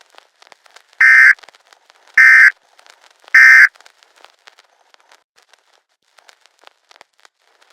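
Three short, loud bursts of Emergency Alert System SAME data tones, each about a third of a second long and about a second apart: the end-of-message signal that closes an EAS alert. Faint crackling clicks run between and after the bursts.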